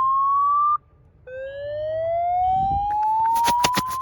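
Outdoor fire alarm speaker sounding a slow whoop evacuation tone. A loud rising sweep cuts off under a second in, and after a short pause it starts low again and climbs through the rest. A few sharp clicks come near the end.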